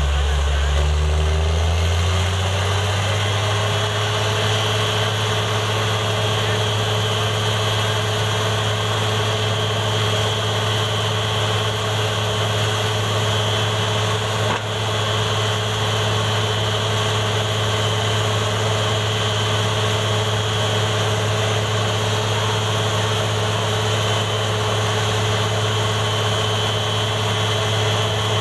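Truck-mounted borewell drilling rig running steadily under load as it drills, with dust and water blowing out of the bore; its engine note rises and settles in the first couple of seconds, and it dips briefly about halfway through.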